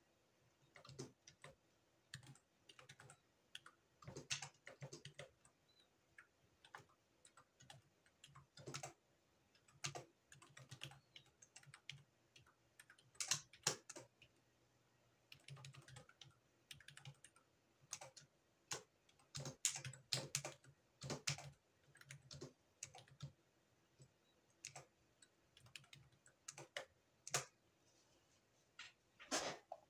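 Computer keyboard being typed on: quiet, irregular keystrokes in short bursts with pauses between, some keys struck harder than others.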